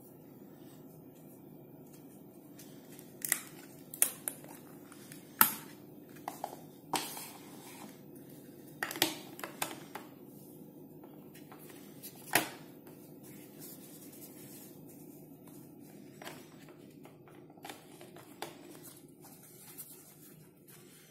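Hard ABS plastic earphone storage box being handled and opened: sharp plastic clicks and knocks from the latch and clamshell lid, the loudest between about three and twelve seconds in, followed by softer handling taps and rubs as the foam insert is lifted.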